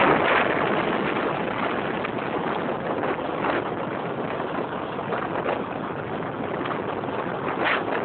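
Steady rush of wind and road noise from a moving Modenas Elegan scooter, with the engine running underneath and short gusty buffets on the microphone; loudest at the start, then easing slightly.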